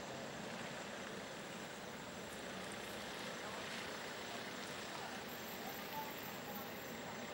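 Dassault Falcon 7X's three Pratt & Whitney PW307A turbofans running at low power as the jet taxis slowly: a steady hiss with a thin, high, constant whine.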